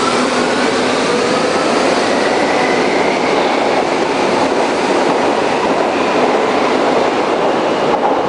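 Berlin U-Bahn class H train running, with wheel-on-rail noise and a motor whine that rises in pitch over the first few seconds as it gathers speed.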